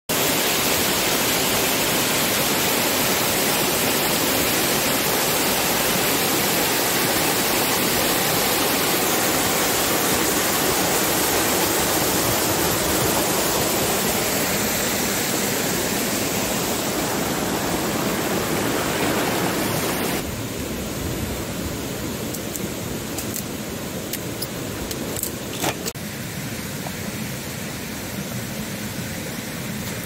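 Small waterfall rushing: a loud, steady hiss of falling water. About twenty seconds in it drops suddenly to a quieter rush, with a few sharp clicks a little later.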